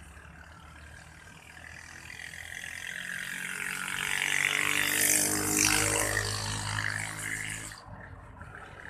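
A motor engine passing close by: its sound builds over a few seconds, is loudest about five to six seconds in, then falls away sharply near the end.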